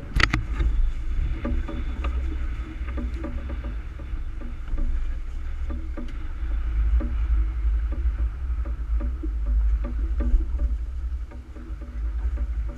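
Small boat out on the water: a steady, fluttering low rumble with scattered light knocks and brief short tones.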